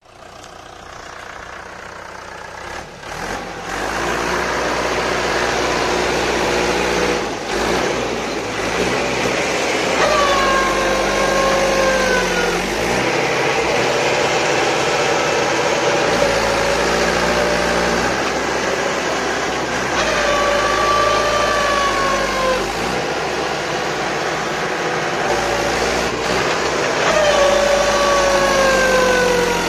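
Mahindra 475 DI tractor's diesel engine working hard as the tractor is stuck in mud, its wheels digging in. The engine note rises over the first few seconds, then three times, about ten seconds in, about twenty seconds in and near the end, it sags in pitch as the engine bogs under load.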